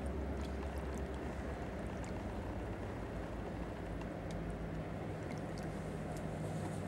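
Steady low rumble of a distant train's locomotive engine as the train runs along the line.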